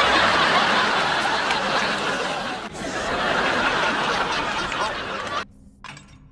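Loud laughter, dense and grainy like many voices at once, that stops abruptly about five and a half seconds in.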